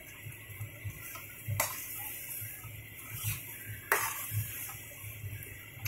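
Metal frying spoon stirring and scraping thick mashed eggplant in a metal kadhai. The spoon clinks sharply against the pan about one and a half seconds in and again near four seconds.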